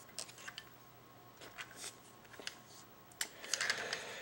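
Plastic Transformers figure, Rescue Ratchet in its H2 ambulance vehicle form, being turned and handled: scattered faint clicks and rustles, growing busier about three seconds in.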